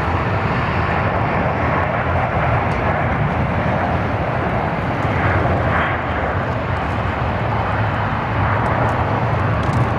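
Jet airliner engines running with a steady, loud rushing noise and a low rumble underneath.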